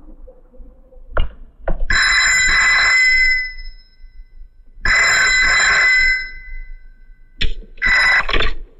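Rotary desk telephone's bell ringing: two long rings about three seconds apart after two sharp clicks, then a short third ring that is cut off near the end as the receiver is picked up.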